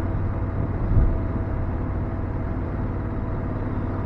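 BMW F750GS parallel-twin engine running steadily at road speed, with wind and road rush around the rider. One short thump about a second in.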